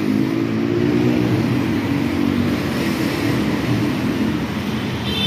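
Road traffic, with a nearby vehicle's engine humming at a steady pitch over the noise of the road. The hum fades out about four and a half seconds in.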